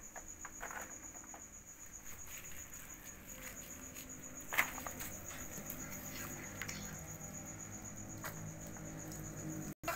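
Crickets chirping steadily in a high, even trill, with a serving spoon scraping and knocking against a metal wok as duck rice is scooped out; the loudest knock comes about four and a half seconds in.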